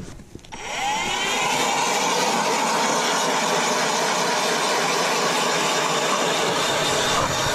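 StrikeMaster Lithium 40V electric ice auger starting up about half a second in, its motor whine rising in pitch, then running steadily as it bores through thick lake ice.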